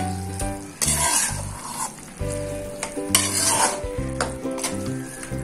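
Metal slotted spoon stirring and scraping through thick cooked urad dal in a metal kadai, three strong strokes about a second and two seconds apart, with the dal sizzling in ghee over the flame. Background music plays underneath.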